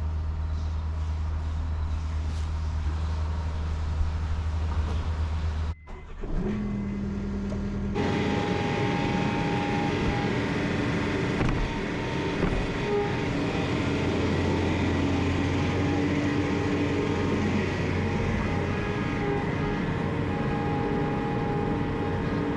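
Engine of farm machinery running steadily under work. The sound changes abruptly about six seconds in and again at eight seconds, after which a denser engine noise with a higher whine carries on.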